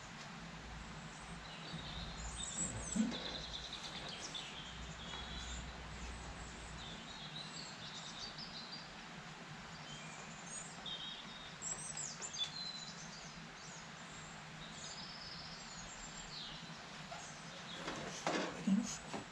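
Birds chirping and singing in the background over a steady low hiss, with a short knock about three seconds in and a few more knocks near the end.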